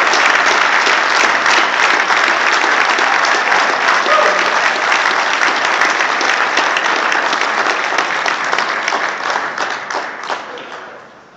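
Audience applauding, many hands clapping steadily, then tapering off over the last two seconds.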